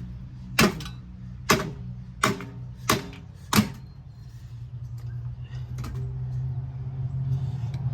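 A hammer striking the metal of a four-wheeler's frame and engine, five hard blows about one a second, then the blows stop. A steady low hum runs underneath.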